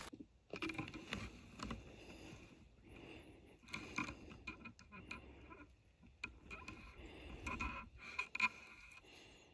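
Faint, irregular rustling and scraping with scattered soft clicks, like handling noise from the rifle and leaf litter while aiming.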